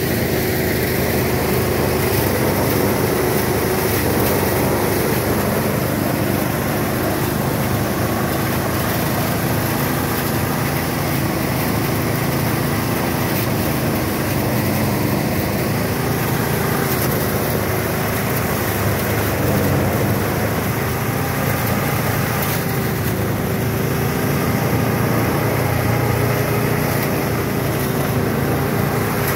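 Small engine running steadily under load while driving a rice threshing machine, its pitch wavering slightly.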